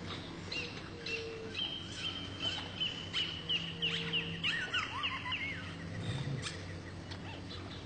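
Forest birds chirping: a quick run of short, falling whistled notes in the middle, over a faint low steady hum.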